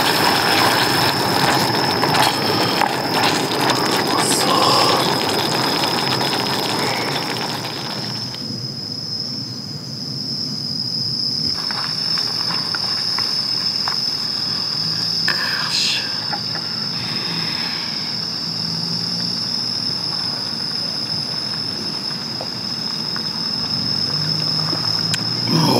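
Autumn insects chirring in one steady high trill throughout. For the first third, thick chili sauce bubbles and simmers in a pot over a camp stove, then drops away.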